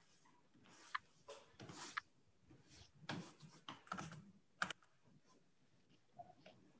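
Faint scratching and tapping of a plastic stylus nib on a pen-display screen as dark outline strokes are drawn, in a run of short irregular strokes with a sharper tick about four and a half seconds in.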